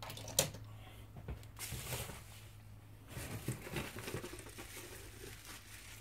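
Bubble wrap crinkling and rustling faintly as it is handled and moved, with a single sharp click about half a second in.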